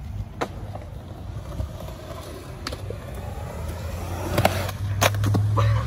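Skateboard wheels rolling over concrete: a low rumble that gets louder toward the end, with several sharp clacks as the board hits joints and bumps in the surface.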